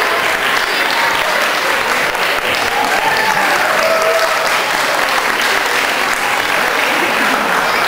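Audience applause, loud, dense and steady, with a few voices calling out over it.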